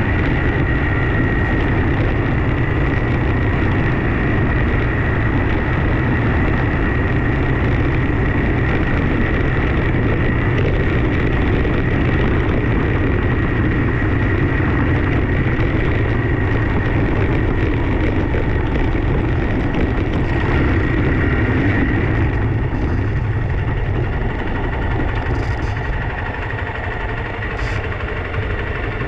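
A vehicle engine running steadily, with a thin steady whine above it; it gets slightly quieter near the end.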